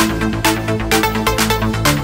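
Background electronic dance music with a steady beat, short synth notes and a low bass line.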